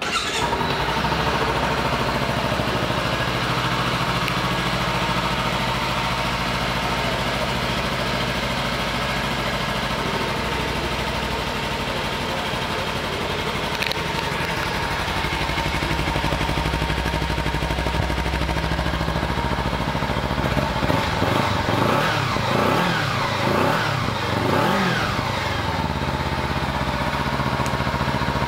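Kawasaki Ninja 300's 296 cc parallel-twin engine idling steadily, then revved in repeated throttle blips over the last third, the revs rising and falling each time.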